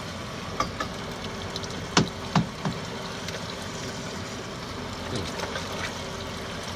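Water sloshing against the hull of a small fishing boat, under a faint steady hum. Several sharp knocks come in the first three seconds, the loudest about two seconds in.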